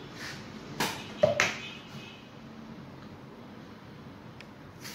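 Three sharp knocks and clicks about a second in as a steam iron and a plastic water bottle are handled, then quiet apart from a small tick. Right at the end a soft hiss starts as water is poured onto the iron's hot soleplate.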